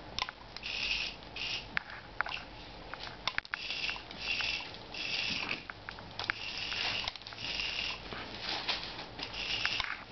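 A small Yorkshire terrier sniffing and snuffling hard in repeated short bursts as she worries a toy mouse, with scattered sharp clicks and taps between them.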